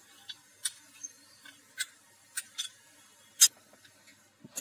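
Scattered sharp ticks and clicks, about half a dozen, the loudest a little before the end, from a stainless steel pan of boiling amchur water with jaggery just added, stirred with a steel ladle.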